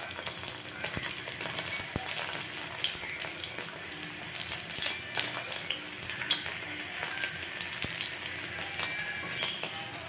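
Sun-dried fish (tuyo) frying in a thin layer of oil in a nonstick wok: a steady sizzle with many small crackling pops throughout.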